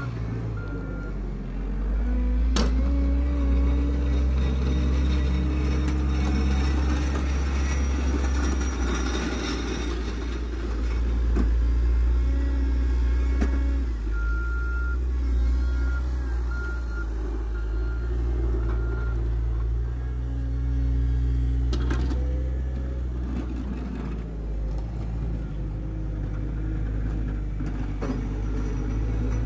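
Caterpillar 906 compact wheel loader's diesel engine running, its speed rising and falling as the machine manoeuvres. A reversing alarm beeps steadily for several seconds around the middle.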